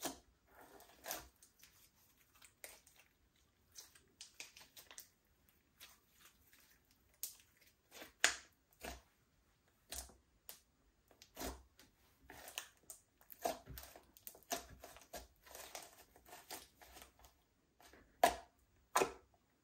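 Slime being squished and kneaded by hand: irregular sticky clicks, crackles and pops, with a few louder pops scattered through.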